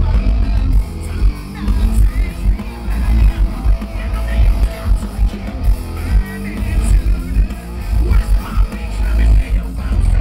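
A live rock band playing loud heavy rock through a festival PA, with a strong, booming bass end.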